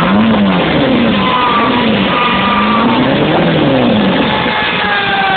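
1988 Kawasaki Ninja 750 inline-four engine on a rear-wheel dyno, revved in a series of throttle blips so that its pitch rises and falls several times, the biggest rise about three seconds in. A higher whine slides slowly downward throughout.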